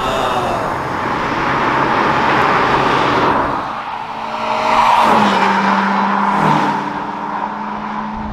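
Honda Civic Type R FN2's four-cylinder engine and tyres as the car drives by. The sound swells twice and the engine note drops in pitch twice in the second half.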